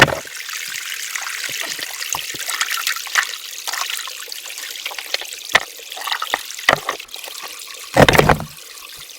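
Shallow, low creek water trickling past a makeshift dam of moss and sticks, with scattered small splashes and knocks as the water is handled. There is a sharp knock at the start and a louder burst of noise about eight seconds in.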